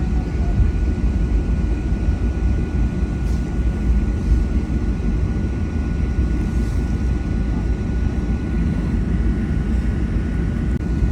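Boeing 757-300 cabin noise with the jet engines running: a steady low rumble with a thin, steady high whine over it.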